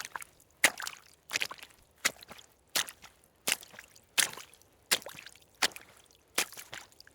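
Footsteps at a steady walking pace, about ten steps, one every 0.7 seconds or so. Each step is a sharp click followed by a brief scuffing trail.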